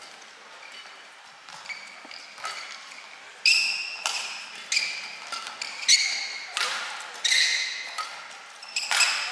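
Badminton rally: the shuttlecock is struck back and forth with rackets, each hit a sharp, ringing ping off the strings. The hits come roughly every two-thirds of a second and grow much louder about three and a half seconds in.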